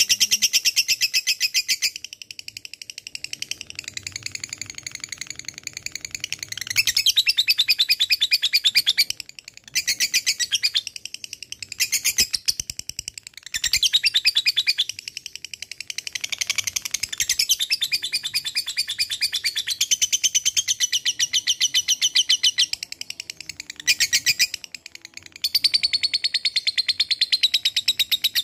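Lovebird singing its long, rapid chattering 'ngekek' song: a fast run of sharp, high repeated notes in phrases several seconds long, broken by short pauses.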